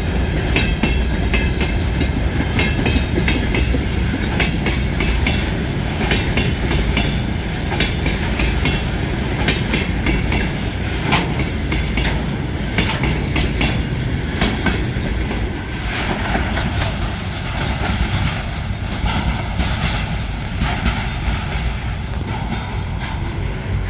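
Freight train wagons rolling loudly across a level crossing: a steady heavy rumble with the clacking of wheels over the rail joints. It eases slightly after about sixteen seconds.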